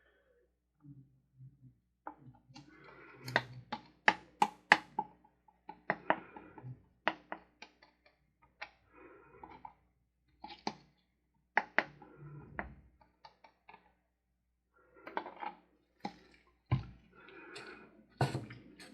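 Handling resin-mixing gear on a tabletop: a string of sharp clicks and taps with scraping and rustling in between, as plastic cups, lids and tools are picked up and set down.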